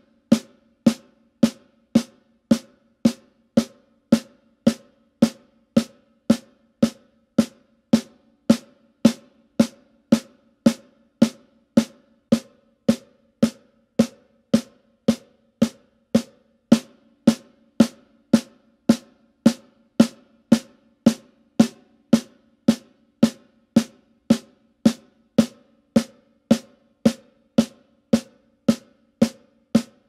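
Snare drum with an Evans head played in even single strokes, a little under two hits a second, each hit ringing briefly. The strokes come from wooden drumsticks of several models in turn: Vic Firth 7A, STR and 55A, plus Crann and Promark sticks.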